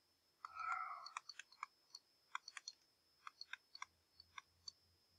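Faint, irregular clicks and taps of a stylus tip on a tablet screen during handwriting, with a brief soft rustle about half a second in.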